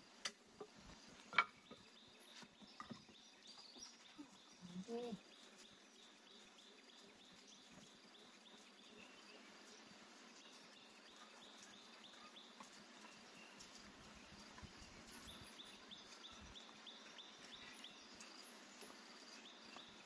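Quiet open-air ambience: a few light clicks or knocks in the first two seconds and a brief animal call about five seconds in, then faint steady insect chirring.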